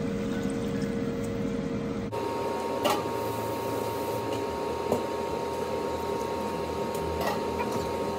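Steady hum of a kitchen appliance fan, whose pitch shifts abruptly about two seconds in, over a wok of chicken and added water. A spatula clicks against the pan three times.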